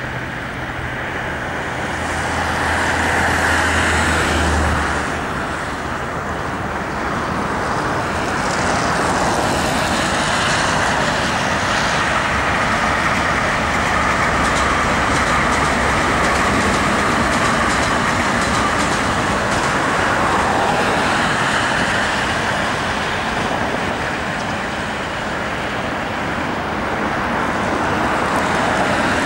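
Steady background road traffic, swelling and easing as vehicles pass, with a low engine hum from a passing vehicle a few seconds in.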